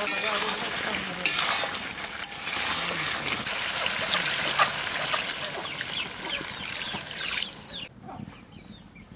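Mutton and papaya curry sizzling in a steel kadai while a spatula stirs it, then water poured into the hot curry. The sizzle drops away abruptly near the end.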